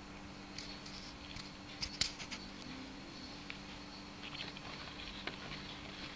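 Scattered light clicks and paper rustling as a folded paper dragon model is handled, with the sharpest click about two seconds in, over a steady low electrical hum.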